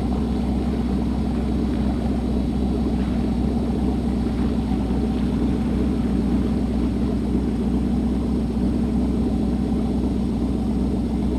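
Motorboat engine running steadily at towing speed, with water churning in the wake behind the stern.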